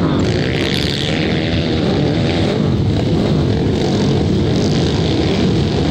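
Several flat-track racing motorcycles running together in a pack on a dirt short track. Their engines rise and fall in pitch as the riders work the throttle through the turn.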